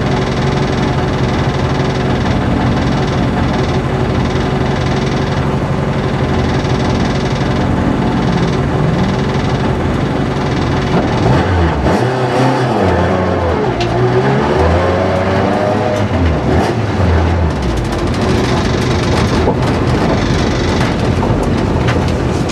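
Rally car engine heard from inside the cabin, idling steadily, then revved up and down several times between about 11 and 17 seconds in before settling again.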